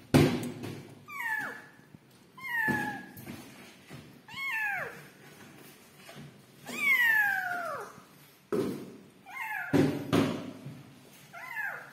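Young kittens mewing: about six high, thin calls that each slide down in pitch, one held longer about seven seconds in. A few short low bumps and rustles come between them, the loudest right at the start.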